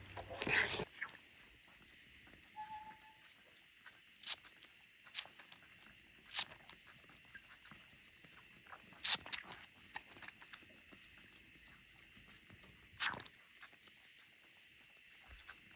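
Steady high chirring of insects, with a few sharp clicks now and then.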